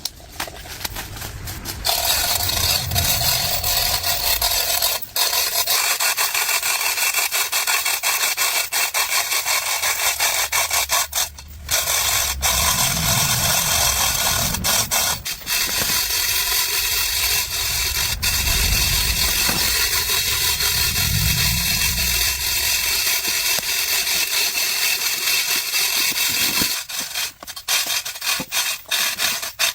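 A power tool scraping and abrading a surface, running steadily with a thin steady whine and a few brief breaks, then stopping near the end.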